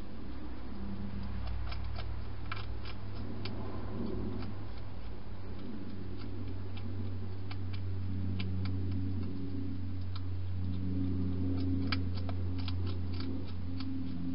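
Wild hedgehog crunching dry food: irregular sharp clicks and crunches, coming in clusters, over a steady low hum.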